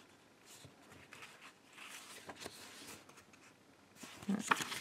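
Book pages being leafed through by hand: soft paper rustling, with a louder page flip near the end.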